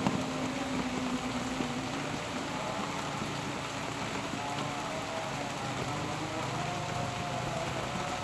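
Steady rain falling, an even hiss of drops. A faint low hum sits under it for the first couple of seconds, and there is a single click right at the start.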